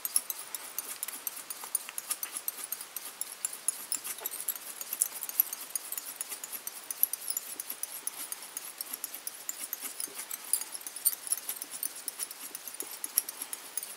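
A fly-tying bobbin holder winding tying thread round a copper tube in the vise: a continuous run of light, irregular clicks and ticks as the thread base is built up.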